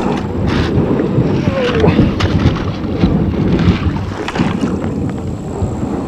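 A kayak running a fast, rough stretch of river: rushing, splashing water against the hull, with repeated sharp knocks and splashes, and wind buffeting the microphone.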